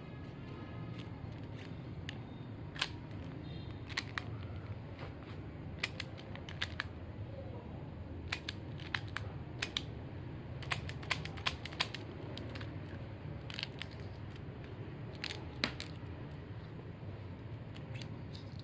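Toy Rhino revolver and its shells being handled, giving irregular sharp clicks and clacks as the cylinder is worked and the shells are loaded and ejected. A faint steady hum runs underneath.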